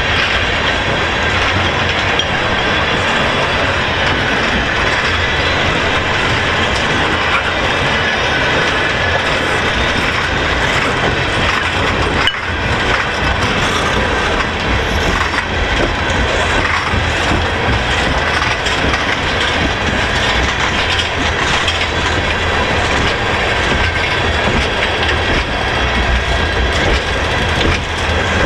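Steel wheels of freight tank cars rolling past on the rails: a steady, loud rumble and clatter with a faint high squeal held over it.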